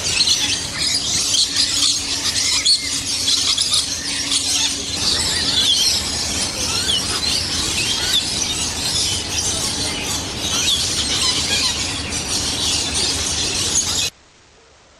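Loud, dense chirping and squeaking of many birds at once, a constant chatter of short high calls, which cuts off suddenly near the end.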